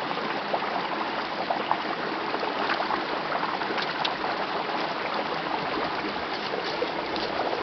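Shallow rocky stream running steadily over stones, with a few faint ticks among the flow.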